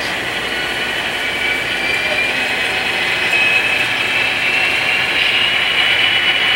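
HO-scale model diesel locomotive and freight cars running on the layout: a steady high whine that slowly rises in pitch and grows a little louder.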